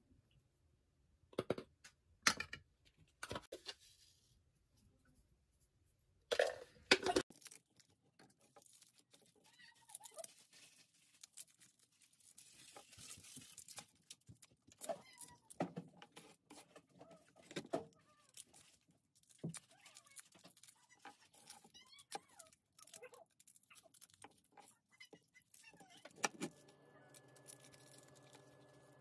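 Garlic cloves being peeled with a chef's knife on a plastic cutting board: papery skins crackling and tearing, with small taps of the blade and cloves on the board. A few sharp knocks come in the first seconds, and a steady hum with several tones sets in near the end.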